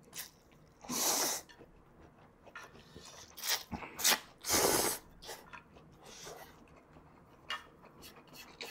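A man slurping instant ramen noodles in several short, loud sucking slurps, with softer mouth sounds between them.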